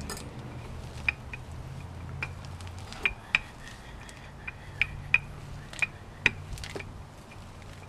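A wooden rolling pin rolled back and forth over ground beef sealed in a plastic zip-top bag on a wooden board: a low rolling rumble with irregular sharp clicks and crinkles from the pin and the plastic.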